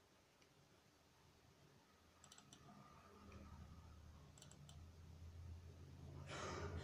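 Faint computer mouse double-clicks: two quick clusters of clicks about two seconds apart, opening a folder and then launching a program. A low hum grows louder under them, and a short rustle comes near the end.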